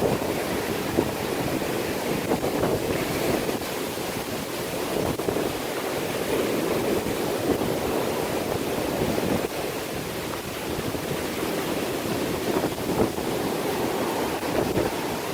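A steady wash of ocean surf from large waves coming in, with wind blowing across the microphone.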